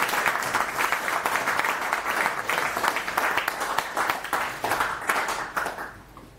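Audience applauding, a dense clatter of many hands clapping that thins out and dies away near the end.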